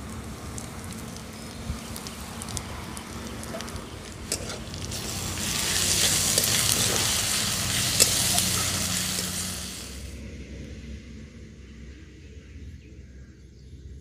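Garlic, green chilli and ground spices sizzling in hot oil in a metal kadai while a spatula stirs them. The sizzle swells loud about five seconds in and cuts off suddenly about ten seconds in.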